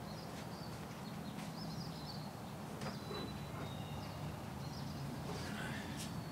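Outdoor ambience: faint bird chirps over a steady low hum, with a few light clicks.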